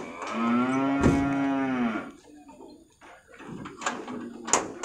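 A large bovine confined in a pickup's cargo cage gives one long moo of about two seconds, its pitch rising slightly and then falling. A couple of sharp knocks follow near the end.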